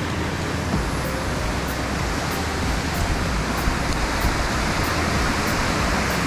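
Waterfall pouring down, a steady rush of falling water with no let-up.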